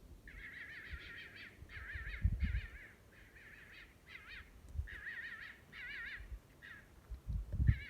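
An animal's repeated high, wavering trilled calls, about nine short phrases with brief gaps between them. Two low thumps, about two seconds in and near the end, are the loudest sounds.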